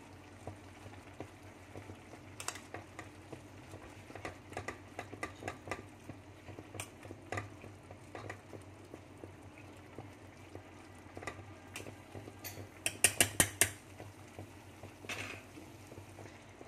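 Metal spoon clinking and scraping against a stainless steel pot while stirring leaves into boiling soup, with scattered light clinks and a quick run of about six sharper clinks a little after halfway, the loudest sounds. The soup boils faintly underneath.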